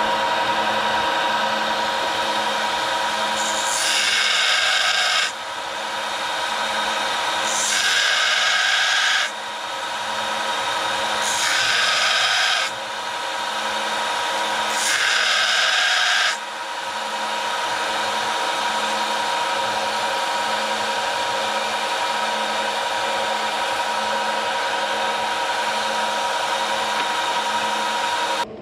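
Electric grinder running steadily, with the steel of a forged hot chisel pressed against it in four short grinding passes of about a second and a half each. The passes truing the chisel's edge to a 90-degree angle fall in the first half; after them the grinder runs on alone.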